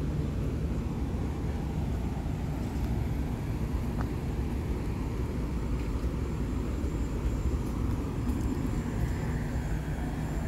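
Street ambience: a steady low rumble of road traffic alongside.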